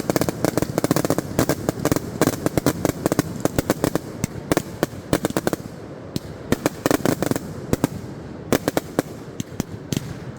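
Consumer firework cakes going off in a finale: rapid volleys of sharp bangs over continuous crackle. The bangs come thickest in the first half, then turn into scattered, separate reports.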